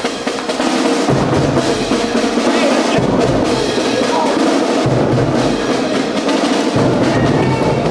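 Drum-driven music with snare rolls and bass drum, playing steadily.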